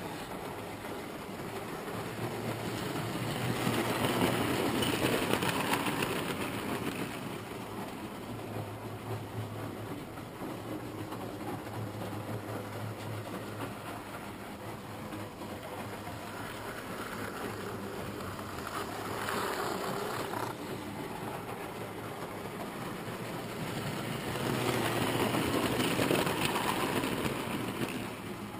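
Hornby OO-gauge model train, a Class 47 diesel hauling tank wagons, running round the track. Its motor hums and its wheels rattle over the rails. The sound swells loudly twice as the train passes close by, a few seconds in and again near the end.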